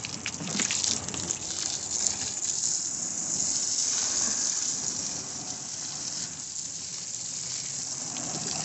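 Water jetting from a garden hose spray nozzle and splashing onto a boat's floor, a steady spray with some spattering in the first couple of seconds.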